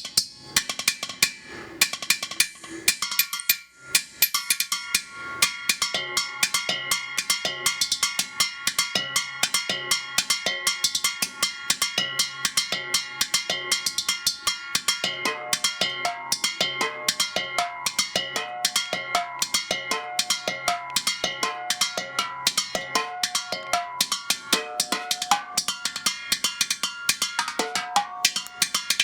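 A set of improvised bells made from recycled metal objects, struck with drumsticks in a fast, steady rhythm of ringing strikes. Lower pitched notes join the pattern about halfway through.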